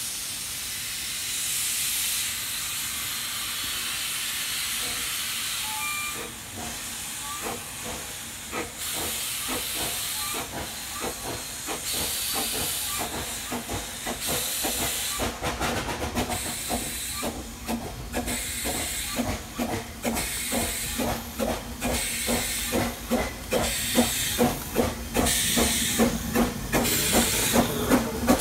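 Double Fairlie narrow-gauge steam locomotive Merddin Emrys starting away with a train: a steady hiss of escaping steam at first, then, from about six seconds in, exhaust beats that begin slowly, quicken and grow louder as the engine draws near.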